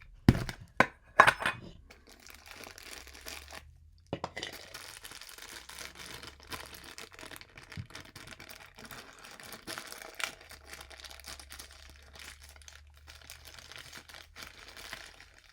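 Funko Soda packaging being opened and the contents handled: a few sharp knocks in the first second and a half, then steady quiet crinkling and rustling with small clicks.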